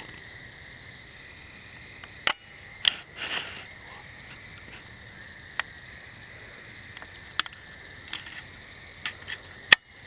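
A steady evening insect chorus of crickets or katydids, buzzing at a few high pitches. Over it come about six sharp clicks or knocks at irregular intervals, a couple of them loud.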